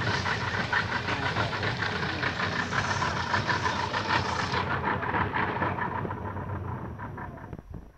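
Outboard motor pushing a longboat along, running steadily, then easing off about halfway through and falling away sharply near the end.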